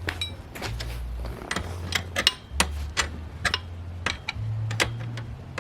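Metal hand tools being picked up and handled: irregular sharp clicks and clinks of sockets and Torx bits, over a low steady hum.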